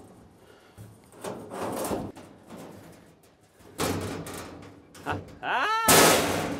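A plasma-cut sheet of 16-gauge steel scraping and knocking against the mail truck's steel body as it is fitted in as a floorboard: several scrapes and knocks, a short rising squeal about five and a half seconds in, then a loud clang, the loudest sound.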